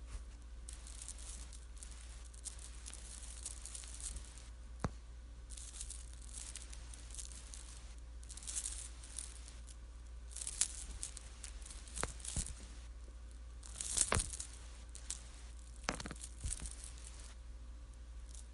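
Rosary beads being handled, clicking and rattling in irregular bursts of a second or two, with a few sharper single clicks.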